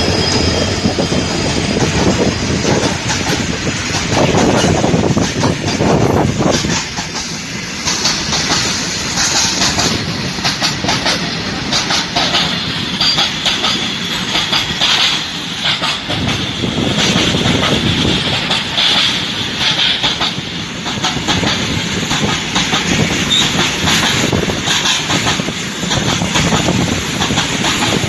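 Diesel-hauled freight train passing close by: the trailing locomotive goes by at the start, then a long rake of covered wagons rumbles past with wheels clattering over rail joints. A faint high wheel squeal runs through the second half.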